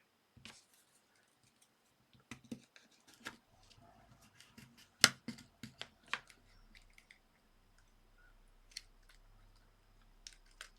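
Scattered clicks and taps of hard plastic phone housing parts being handled and separated, most of them in the first half, with one sharp click about five seconds in.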